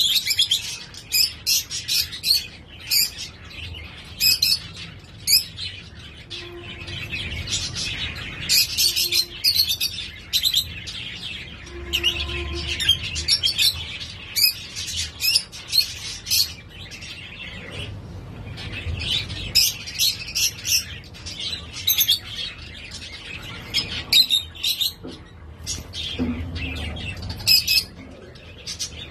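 Caged Gouldian finches chirping: a busy run of short high chirps in quick succession, broken by a few short lulls.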